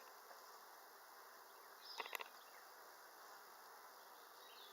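Honeybees buzzing faintly around an open hive, with a short cluster of light clicks about two seconds in.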